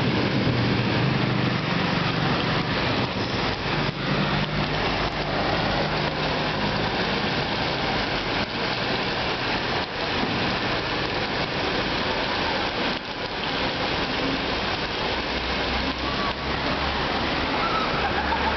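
Heavy rain pouring down on a city street, a steady dense hiss, mixed with traffic: buses and cars running and their tyres on the wet road. A low engine hum stands out for the first several seconds.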